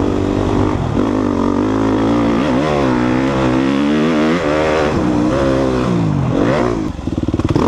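2014 Suzuki RM-Z250 dirt bike's four-stroke single-cylinder engine under way on a trail, the revs rising and falling again and again with the throttle. Near the end the revs drop and the sound turns choppy.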